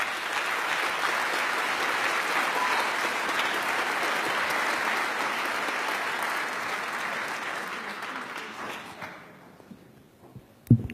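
Audience applauding: steady clapping that dies away about nine seconds in. Near the end comes a single short thump, the loudest sound here.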